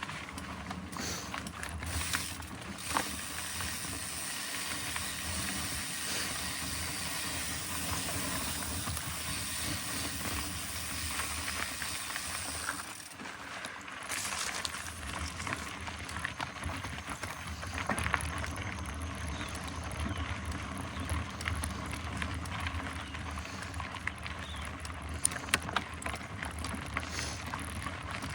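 Mountain bike being ridden over a dirt trail: a steady rush of tyre and wind noise with the bike rattling, and sharp clicks and knocks now and then.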